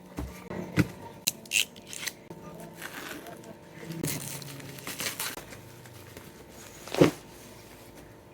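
Packaging being handled: irregular crinkling and rustling with scattered clicks and knocks, the loudest knock about seven seconds in.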